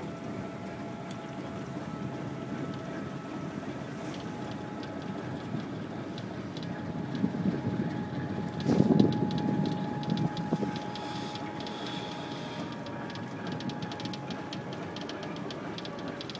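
TEM2UM diesel shunting locomotive running steadily while it pushes through deep snow over the track. There is a steady whine, a louder surge about nine seconds in, and a fast crackle through the second half.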